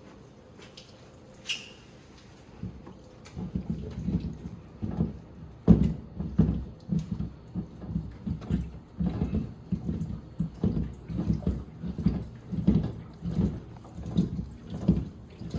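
Water sloshing and dripping as a whole-house water filter housing is unscrewed and taken down, with a run of irregular low splashes and knocks starting a few seconds in.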